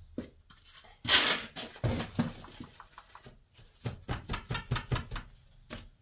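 Potting compost scooped and pressed into small plastic plant pots: a rush of compost about a second in, then a run of light knocks, taps and rustles as the plastic pots are filled, handled and set down.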